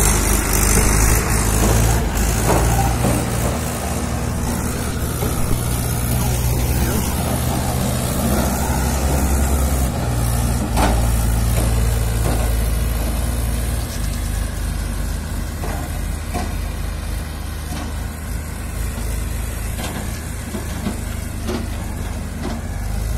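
Tractor's diesel engine running steadily under load as it hauls a trailer of wooden poles, growing gradually fainter as it moves away.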